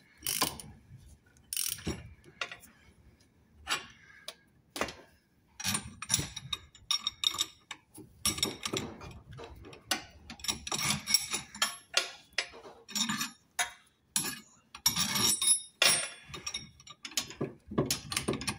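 Socket ratchet clicking in repeated short runs as it is worked back and forth, winding up a press that uses a socket to push out a rear lower shock absorber bush. The runs come closer together in the second half.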